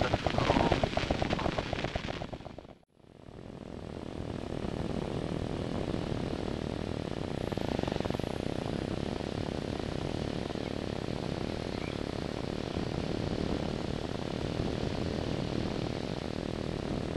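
Light aircraft's engine and airflow in cruising flight, a rapid even pulsing at first, then a steady drone and rush. The sound dips out almost completely about three seconds in and fades back up.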